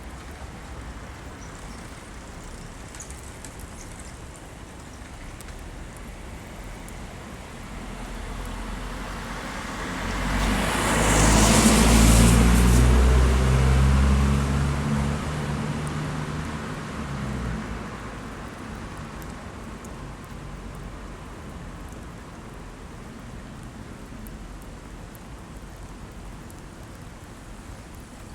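A motor vehicle passes on a wet road, its engine and tyre hiss swelling over several seconds to a peak about halfway through, then fading away, over a steady hiss of rain.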